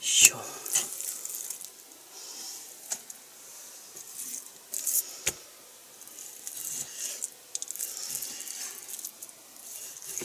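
Santoku knife slicing raw chicken breast on a cutting board, with wet handling of the meat and scattered taps of the blade on the board, the sharpest about five seconds in.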